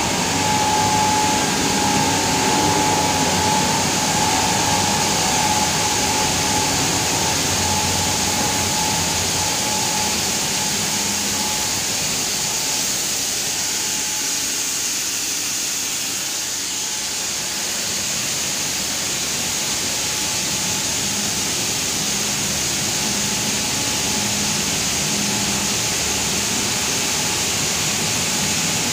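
Steady machine din of an electro-galvanized wire production line running, with many wires drawn over rollers and through the process tanks. A steady whine sounds over the noise at first and fades out partway through.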